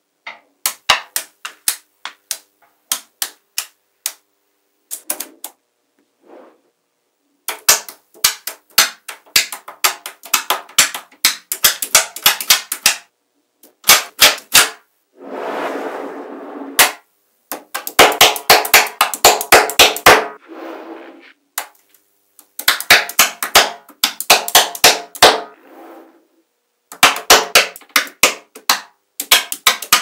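Small metal magnetic balls clicking and snapping together in rapid runs of sharp clacks, with short pauses between runs. About halfway through comes a few seconds of denser clattering rattle.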